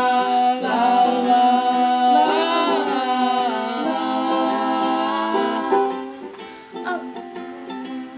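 Voices singing a wordless "la la" line in held notes over a strummed ukulele, growing quieter about six seconds in.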